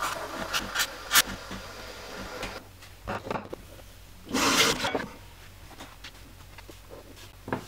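Handling sounds while making a latte with a home espresso machine and a stainless milk pitcher: a few sharp clicks and knocks in the first second or so and again around three seconds in, with a faint hiss that fades out by about two and a half seconds. About four and a half seconds in comes a short, louder rush of noise, and one more knock near the end.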